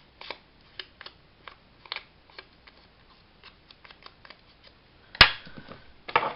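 An ink blending tool dabbed and scraped along the edge of a kraft-paper pocket to darken it, making scattered light taps. One sharp click comes about five seconds in, followed by paper rustling as a page is picked up.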